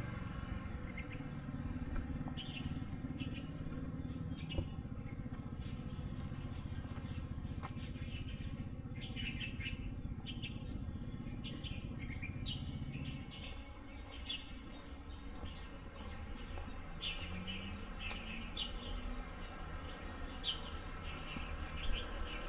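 Birds chirping: many short calls scattered throughout, over a low steady rumble that eases off about halfway through.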